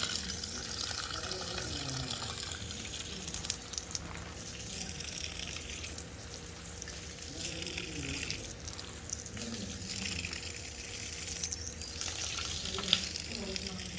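Running water, a steady rushing hiss that swells and fades a little, with one sharp click near the end.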